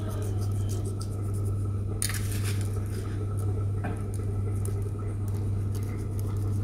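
Sesame seeds sprinkled by hand onto egg-washed dough sticks in a nonstick baking tin: faint, scattered ticks as the seeds land, with a brief rustle about two seconds in. A steady low hum runs underneath.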